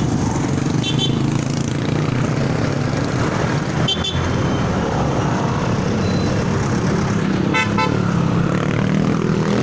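Steady drone of a small motorcycle engine riding through street traffic, with short horn beeps about a second in, at about four seconds, and a quick run of beeps near the end.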